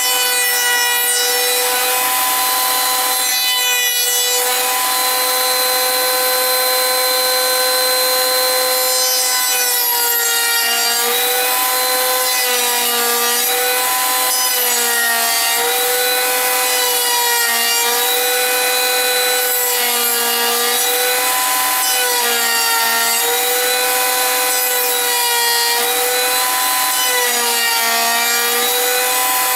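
Electric woodworking machine running with a steady whine while cutting wood. From about ten seconds in, its pitch sags briefly again and again as the cut loads the motor.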